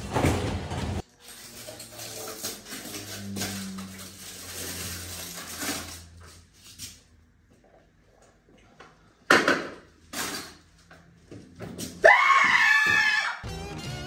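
Background music, then near the end a loud human scream lasting about a second and a half.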